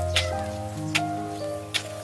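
Background music: gentle held notes over a light, sharp tick on an even beat, about one every 0.8 seconds.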